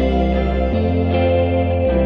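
Background music: sustained, slow chords over a bass note that changes about once a second.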